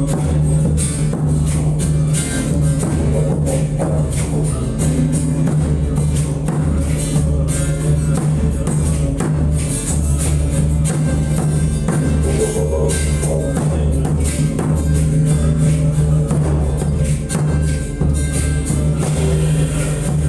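Didgeridoo holding a steady drone over a hand drum beating out a continuous rhythm, with sharp higher percussion strokes on top.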